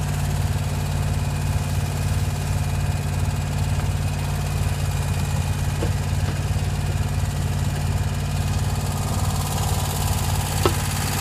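Scag Tiger Cat II zero-turn mower engine running steadily at an even speed, with one faint click about ten seconds in.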